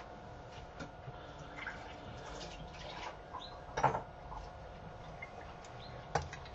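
Fried rice sizzling faintly in a frying pan on the hob, with scattered small pops and ticks. A sharper click comes about four seconds in and another just after six seconds.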